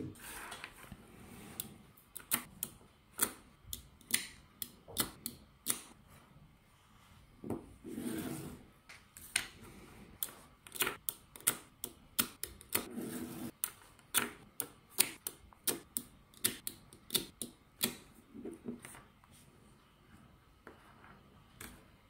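Small neodymium magnetic balls clicking as they snap together, many sharp irregular clicks, sometimes several in quick succession, with a few short rustling sounds between them.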